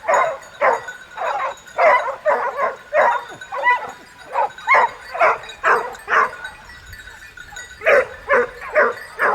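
A pack of hunting dogs barking, several voices overlapping in quick, uneven calls. There is a short lull past the middle, then the barking picks up again.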